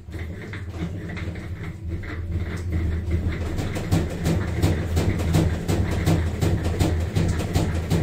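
Panasonic NA-F65G7 top-load washing machine running with a steady low hum and a rapid, uneven knocking and rattling, several knocks a second. This is the machine's problem noise.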